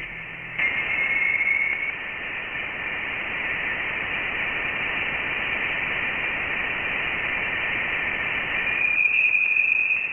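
Sonified recording of a neutron star collision: a steady, static-like hiss with a faint high whistle about a second in and a brighter one near the end.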